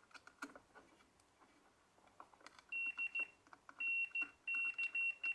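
Multimeter continuity buzzer beeping in short, broken bursts from about halfway in, a single high tone cutting in and out as the test probes make and lose contact on the vacuum cleaner's wiring; a few light clicks of the probes come before it.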